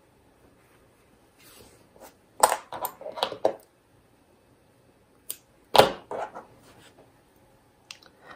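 Small metal scissors snipping through yarn: a quick run of sharp clicks about two and a half seconds in. A few seconds later comes a louder knock as the scissors are set down on a cutting mat, then a few light ticks of handling.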